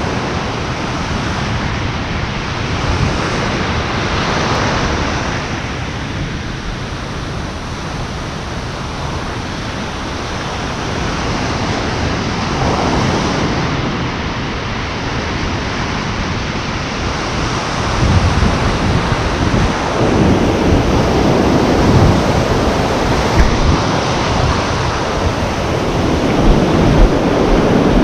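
Ocean surf washing and breaking, rising and falling in slow surges. Wind buffets the microphone, and the sound gets louder and rougher with low rumbling about two-thirds of the way in.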